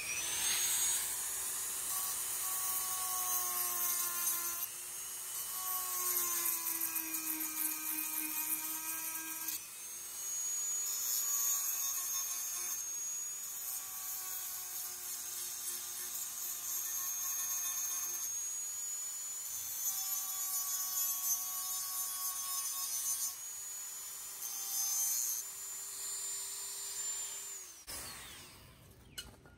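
Dremel rotary tool with a pink grinding stone whining at high speed as it deburrs the freshly ground sharpening choil on a steel knife blade. The pitch drops and recovers several times, and the motor winds down and stops near the end.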